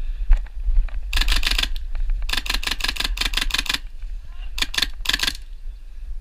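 Airsoft rifle firing in four full-auto bursts of rapid clicking shots, about eight shots a second, the longest lasting about a second and a half.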